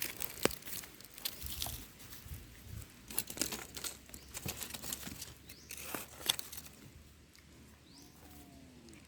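Dry forest leaf litter rustling and crackling under hands or feet, with irregular crunches and snaps. It dies down about seven seconds in.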